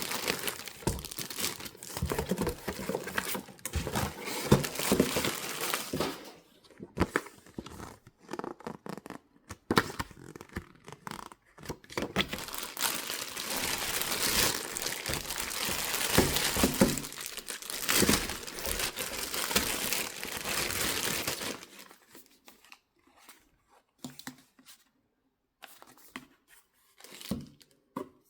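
Packaging being unwrapped by hand: continuous crinkling and tearing of the wrapping, dying down about three quarters of the way through to a few light handling sounds.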